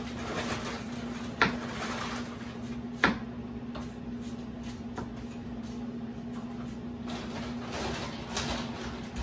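Kitchen knife slicing a red onion, tapping sharply on a plastic cutting board a few times about a second and a half apart. A steady low hum runs underneath.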